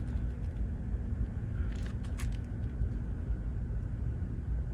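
Steady low outdoor rumble, with a few faint clicks about two seconds in.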